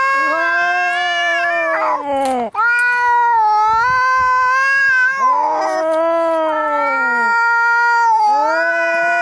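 Angry cats caterwauling as in a fight: long, drawn-out yowls, each held for two or three seconds, with brief breaks between them.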